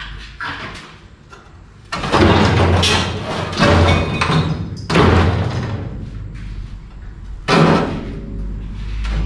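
Heavy bangs on the rusty sheet-metal floor of an old truck cab as it is worked loose: four loud hits spaced a second or two apart, each dying away over about a second. Background music plays underneath.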